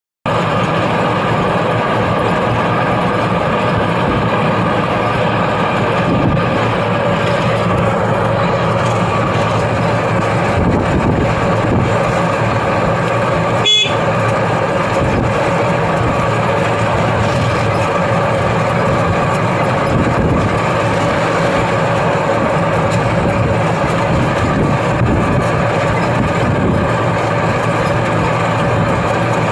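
A steady, unbroken vehicle drone with a constant hum, interrupted once by a single sharp click about halfway through.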